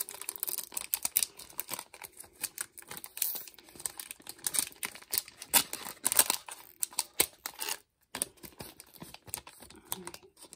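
Foil wrapper of a Japanese Pokémon card booster pack crinkling in quick, irregular crackles and clicks as fingernails pick at its crimped top seal to peel it open.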